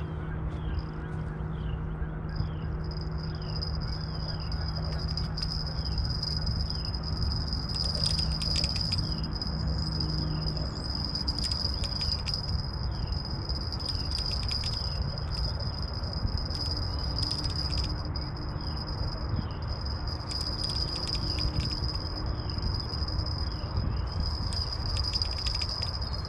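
An outdoor chorus of small calling animals: a continuous high-pitched trill that starts about two seconds in, with short rising chirps repeating a little under twice a second, over a steady low rumble.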